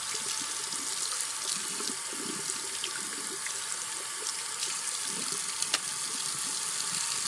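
Tap water running steadily into a bathroom sink and splashing over an electric rotary shaver's head as it is rinsed. A single sharp click comes near the end as the shaving unit is snapped back onto the handle.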